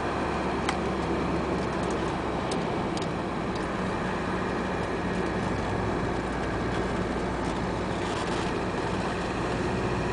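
Steady engine and road noise inside a car's cabin while it drives at an even speed, with a couple of faint ticks.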